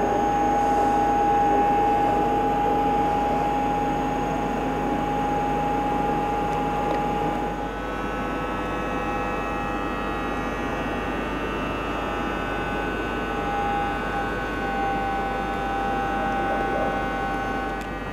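Steady electrical hum made of several held tones, the strongest a mid-pitched tone; the mix of tones changes about eight seconds in.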